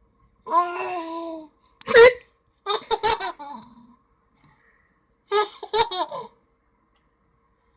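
A person with hiccups: a drawn-out vocal sound, one sharp hiccup about two seconds in, then two bursts of laughter.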